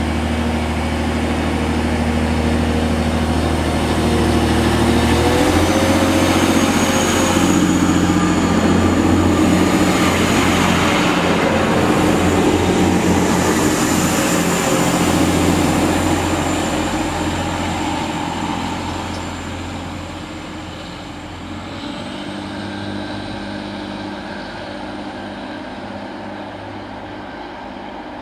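Class 185 diesel multiple unit idling, then about five seconds in its diesel engines rev and it pulls away with a rising engine note and a high whine. The sound fades as the train leaves.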